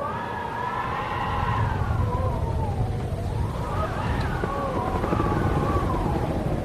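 Wind howling, its whistling pitch rising and falling in slow glides over a steady low rumble.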